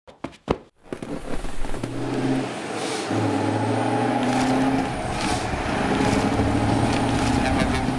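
A heavy vehicle's engine running steadily with a low hum, starting about a second in.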